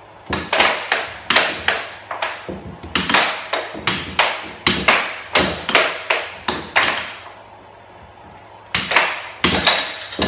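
Air hockey puck and mallets clacking in fast rallies, several sharp plastic hits a second as the puck is struck and bounces off the table's rails. The hits stop for a moment about seven seconds in and pick up again near nine seconds.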